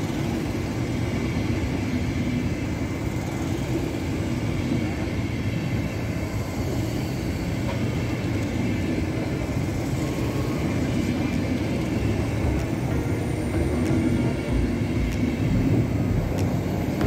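Intercity passenger coaches rolling past along the platform: a steady low rumble of wheels on rails.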